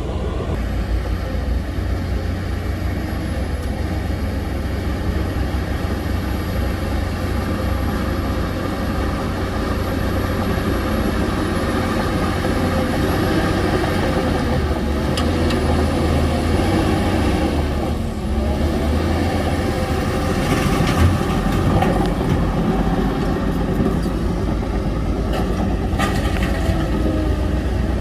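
Heavy diesel earthmoving machinery running steadily under load with a deep engine rumble, with a few short metallic clanks.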